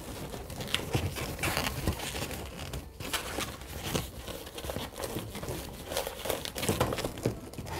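Latex modelling balloons rubbing and squeaking under the hands as they are twisted and hooked together, in a string of irregular short scrapes and squeaks.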